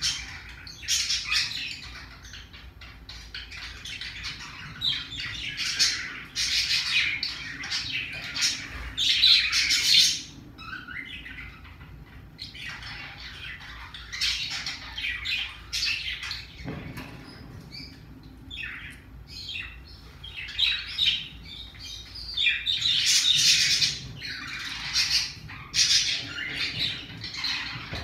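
A Pacific parrotlet chirping and squawking in short, irregular bursts of rough, scratchy calls, louder in two spells about a third of the way in and again near the end.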